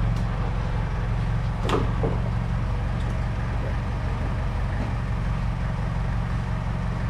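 A steady low mechanical hum, with two short knocks about two seconds in.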